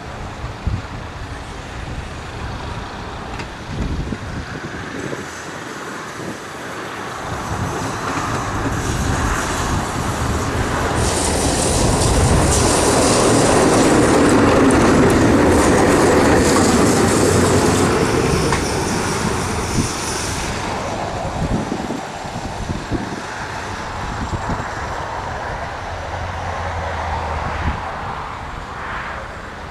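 Tram running on street rails, its wheel and rail noise building up, loudest with a high hiss in the middle, then easing off again.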